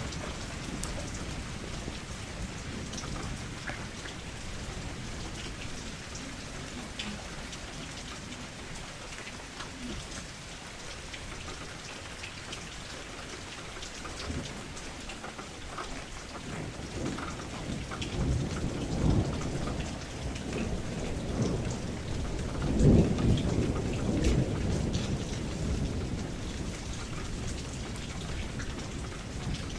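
Thunderstorm: steady rain with scattered drop ticks, and thunder rumbling in over the second half. The thunder is loudest about two-thirds of the way through, then eases back to the rain.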